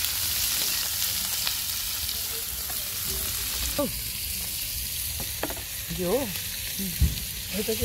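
Meat slices sizzling on a flat iron griddle over a wood fire, a steady hiss, with faint voices now and then.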